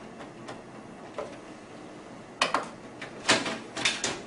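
Quiet at first, then from about halfway in a run of sharp plastic clicks and knocks, the loudest near the end, as a laser printer's plastic top cover is handled and lifted off.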